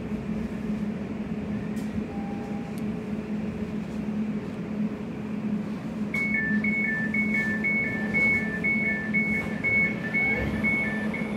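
Class 345 train standing at a platform with its equipment humming steadily. About six seconds in, the two-tone door warning starts, beeping high and low in alternation about twice a second, as the doors close.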